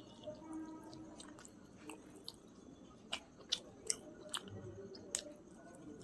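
A person chewing a mouthful of chicken biryani, with sharp mouth clicks several times, most of them in the second half.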